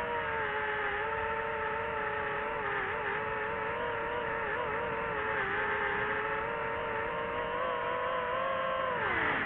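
DJI FPV drone's motors and propellers running with a steady multi-toned whine whose pitch wavers with throttle. About nine seconds in it dips, then climbs again.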